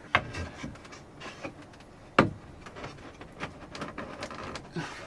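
Scattered knocks and clicks of things being handled, the loudest a sharp knock about two seconds in.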